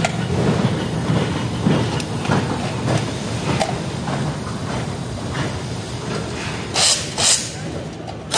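Assembly-line background noise with scattered clicks and knocks of metal parts being handled. Near the end, two short bursts from a pneumatic tool on an air hose.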